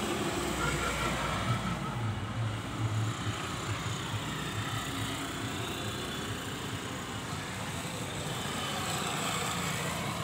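Road traffic: motor vehicles running past on a town road, with a motorcycle coming closer near the end.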